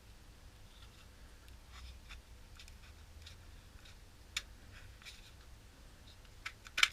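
Faint handling of a plastic-and-metal utility knife and its blade holder: light scrapes and ticks, a sharp click about four seconds in, then a quick run of clicks near the end.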